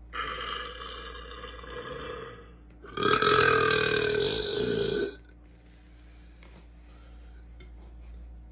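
A man burping twice: a first long burp of about two and a half seconds, then a louder one of about two seconds.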